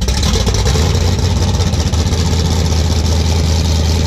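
Cammed 2014 Chevrolet Camaro SS 6.2-litre V8 idling loud just after starting, running on open headers with the whole exhaust system removed.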